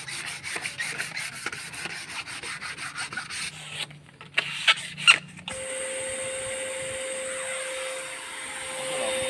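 Sandpaper rubbed by hand over a teak panel in quick back-and-forth strokes, then a few sharp knocks. About five and a half seconds in, an electric spray gun's blower starts and runs with a steady whirring hiss and hum, ready to spray a clear matte finish.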